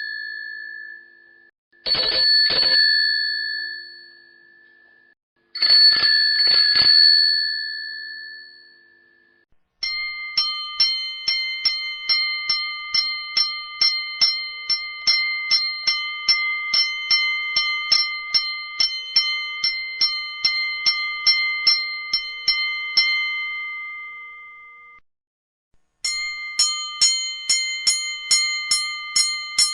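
A series of bell rings. First, three separate quick double rings of a bicycle bell, each left to ring out for a few seconds. Then a bell struck in rapid, even succession for about fourteen seconds until it fades, and after a brief gap a brighter-sounding bell rung rapidly the same way.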